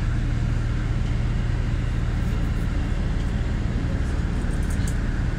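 Steady low drone of a LiAZ 5292.67 city bus's compressed-natural-gas YaMZ-53624-40 engine, heard inside the passenger cabin with an even rumble of cabin noise.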